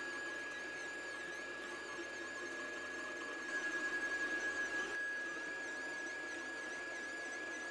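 Anycubic i3 Mega 3D printer printing: its stepper motors whine in faint gliding tones over a steady high tone, with a stretch of rapid pulsing, about eight a second, near the middle.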